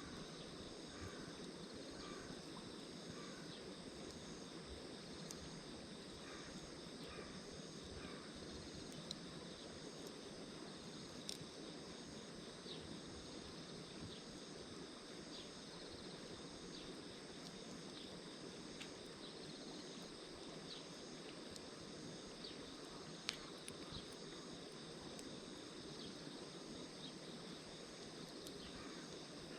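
Insects trill steadily in pulsing chirrs over a low, even hiss. A few sharp clicks stand out, the loudest about 23 seconds in.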